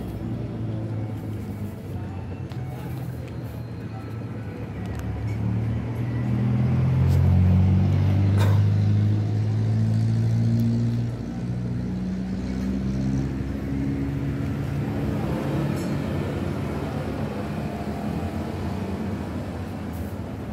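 A motor vehicle's engine running close by, a low steady hum that grows louder about six seconds in and drops back around eleven seconds.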